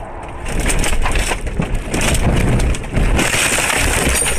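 A car crashing off the road through brush and trees: a dense run of scraping, cracking and knocking as branches and undergrowth hit the car's body.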